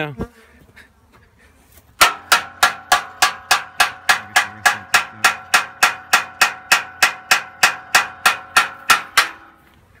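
Tanging: a metal object struck over and over in a steady rhythm, about three ringing clangs a second, starting about two seconds in and lasting some seven seconds. It is the old beekeepers' way of getting a honey bee swarm to settle.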